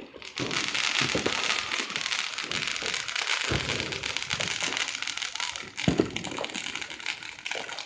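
Fireworks crackling densely and without a break, many rapid small pops run together, starting suddenly just after the start, with a couple of deeper bangs in the middle.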